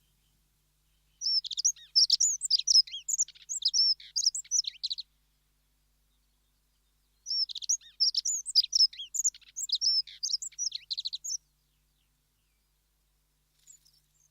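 Dunnock singing: two fast, high, jingling warbles of about four seconds each, a couple of seconds apart.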